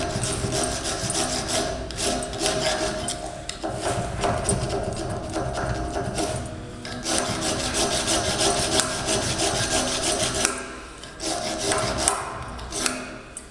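Hand file rasping back and forth over a soft pot-metal (zinc-alloy) part clamped in a bench vise, in a steady run of strokes. The filing breaks off briefly about six seconds in, picks up again, and ends in a few shorter strokes.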